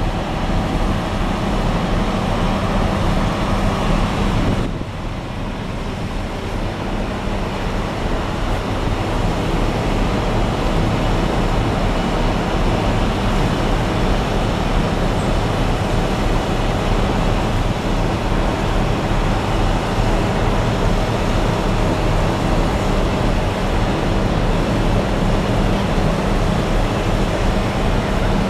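Heavy diesel machinery running steadily, a low engine drone with a broad mechanical hiss over it. It drops away briefly about four and a half seconds in and builds back up over the next few seconds.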